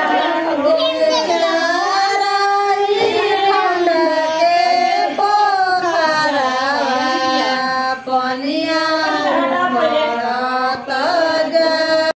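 A high voice singing a slow melody, holding long notes that bend and waver in pitch.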